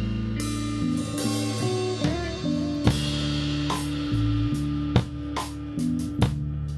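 Live instrumental band: an electric guitar plays sustained notes with pitch bends over a bass guitar line and a drum kit, with scattered sharp drum and cymbal hits.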